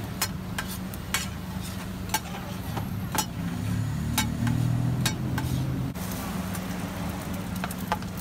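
Metal spatula scraping and clacking against a large iron griddle as noodles are stir-fried, with sharp clacks every half second to a second over a steady sizzle. A low hum runs underneath, and a louder low rumble comes in for a few seconds in the middle.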